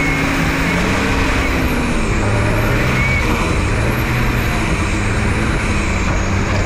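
Four-wheel-drive vehicle's engine running as it drives along a sandy track, its pitch rising and falling with the throttle, under a steady rush of wind noise.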